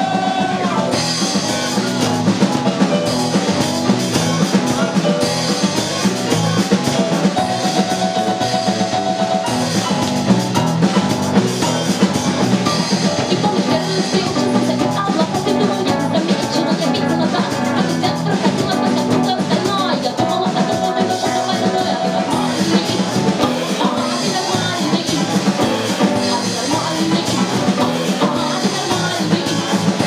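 Live band playing a song: electric bass, keyboard and guitar over a drum kit keeping a steady beat.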